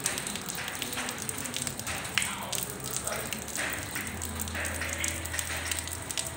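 Rain falling on wet pavement and into a shallow puddle: a steady hiss made up of many small, sharp drop splashes.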